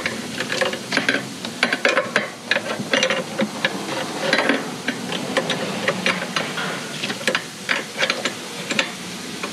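Irregular metallic clicks, taps and scrapes of hand tools working in an engine bay, as a thread tap is worked into a stripped spark plug hole.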